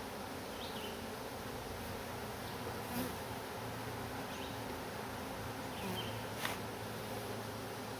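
Honey bees buzzing steadily around an open hive during a frame inspection, a continuous low hum. Two short sharp clicks, about three seconds in and again near six and a half seconds.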